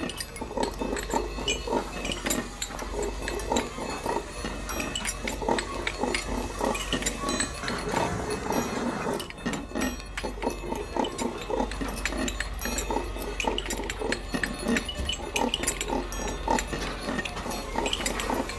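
Truck-mounted hydraulic grab crane at work: a rapid, uneven grinding pulse from the engine and hydraulics over a steady low hum, with scattered metallic clinks from the steel clamshell grab.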